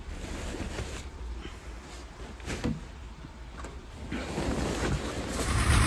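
Dust sheets and a cardboard box being handled: soft rustling with a few knocks. Near the end the Mercedes 220SEb's straight-six engine cuts in, running.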